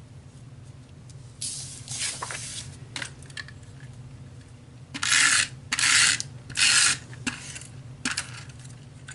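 Cardstock and patterned paper being handled on a craft table: a rustle of sliding paper, then three short, loud scraping strokes about five to seven seconds in.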